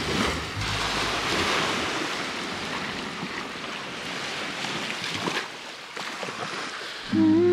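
Sea waves washing, a steady rushing that swells and then slowly thins out. Just before the end a low held tone with a slight waver comes in.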